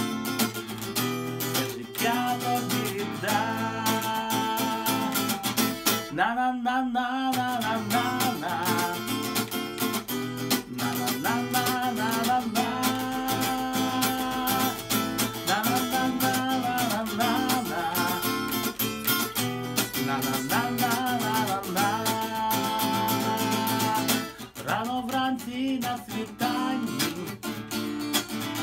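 A man singing a worship song and accompanying himself on a strummed acoustic guitar.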